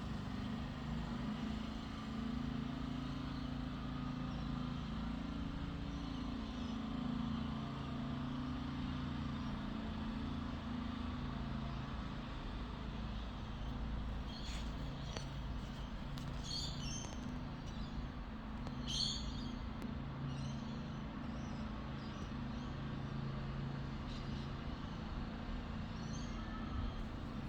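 A steady low mechanical drone, like a running vehicle engine, its pitch shifting slightly. From about halfway on, clusters of short high bird chirps come over it.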